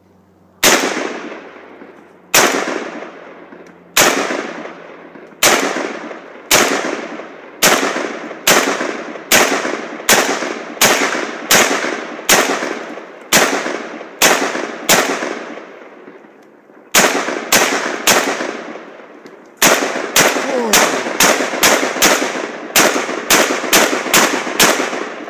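Krinkov-style short-barrelled AK carbine fired shot by shot, about thirty-five shots in all, each ringing out with a short echo. The shots come about a second and a half apart at first, then quicken to roughly one a second. After a brief pause they come faster still, two to three a second, near the end.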